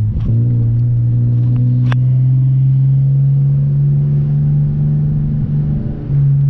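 Lexus SC300's swapped 2JZ-GTE turbocharged inline-six, heard from inside the cabin through a Blitz Nur-spec exhaust, running at a steady low drone while cruising. There is a sharp click about two seconds in, and the drone briefly dips near the end.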